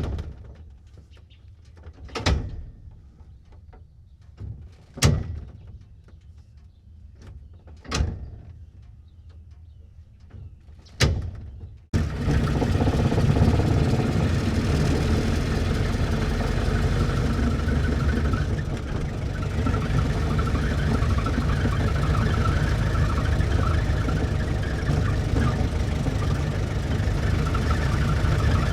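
1924 Ford Model T stake bed pickup's doors slammed shut five times, about every three seconds; then, about twelve seconds in, the truck's four-cylinder engine cuts in already running at a steady idle.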